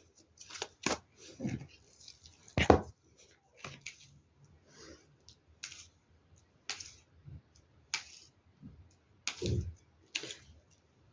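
Tarot cards being handled and laid down on a table: scattered soft clicks and taps, with two louder knocks, one about three seconds in and one near the end.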